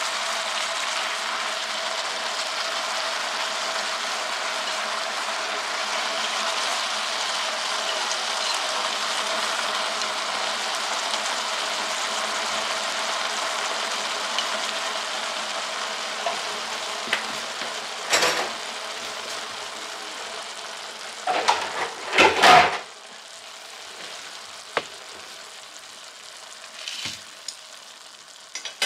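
Wild greens and chicken sizzling as they stir-fry in an electric hot pot, a steady frying hiss that grows quieter over the last several seconds. Chopsticks knock and scrape against the pan a few times, loudest a little past two-thirds of the way through.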